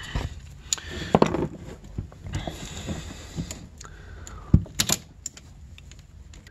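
Hands handling the plastic cable retainer and power valve cables at the servo: scattered small clicks, rattles and rubbing, with a sharp click about four and a half seconds in and two more close after it.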